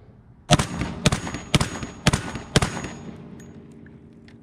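Five unsuppressed 12-gauge shots fired in quick succession, about two a second, from a Black Aces FD12 semi-automatic bullpup shotgun, each followed by a short echo. The gun cycles every round without a malfunction.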